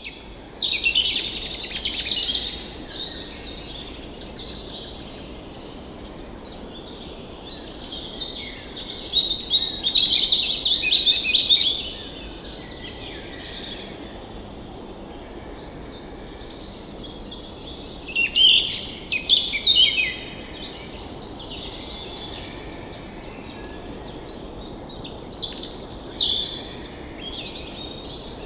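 Several forest birds singing and chirping, with chirps and trills coming in bursts, over a steady low rush of flowing stream water.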